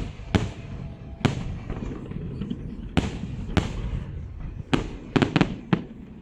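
Fireworks salute: shells bursting in a series of sharp bangs, about nine in all, with a quick run of four about five seconds in, over a steady low rumble.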